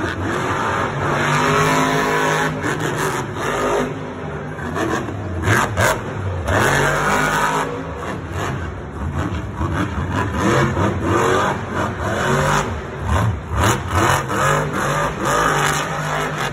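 Monster truck's supercharged V8 revving hard and repeatedly, the pitch climbing and dropping over and over as the truck drives its freestyle run, with a few short sharp knocks about five to six seconds in.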